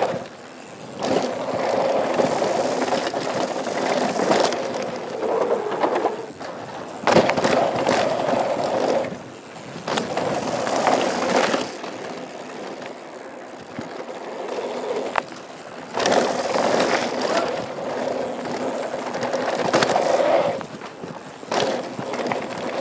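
Mountain bike rolling fast down a dirt downhill trail, heard from the bike-mounted action camera: tyre noise over dirt and rocks with rattling from the bike. The noise surges louder and drops back several times, with sharp knocks from bumps and landings, one about seven seconds in.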